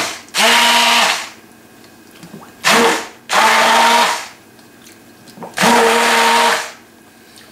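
Hand-held stick blender with a plastic shaft, run in short bursts of about a second with pauses between, its motor whirring at a steady pitch as it chops sliced ginger in a pot of sugar syrup.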